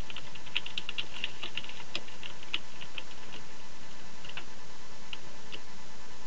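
Typing on a computer keyboard: a quick run of key clicks for about three seconds, then a few scattered keystrokes, over a steady background hiss.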